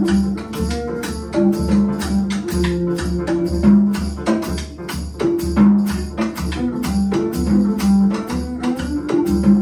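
Piano, double bass and drum kit playing a jazz arrangement of a traditional Moroccan song, the bass bowed and the drums keeping a steady beat.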